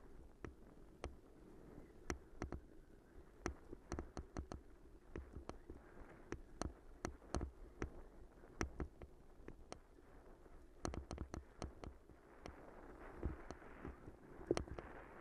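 Bicycle rolling over a rough, bumpy path: a low tyre rumble with frequent irregular clicks and knocks as the bike jolts over the surface.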